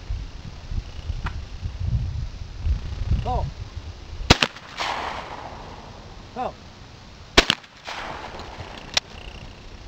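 Shotgun shots at skeet: a loud shot about four seconds in and another about three seconds later, each about a second after a short shouted call, then a thinner crack near the end.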